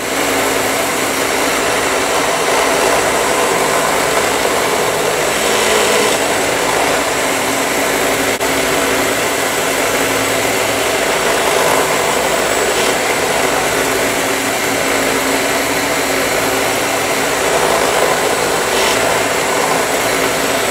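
Benchtop drill press and a shop vacuum hooked up for dust collection running steadily and loudly while holes are bored through a 2x4.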